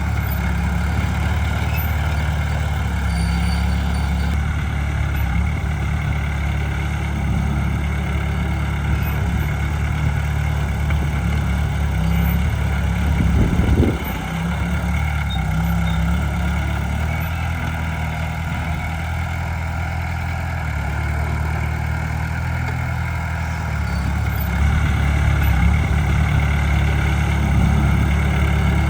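Diesel engines of heavy earthmoving machinery running steadily. There is a short, louder surge about halfway through, and the engine noise grows louder for the last few seconds.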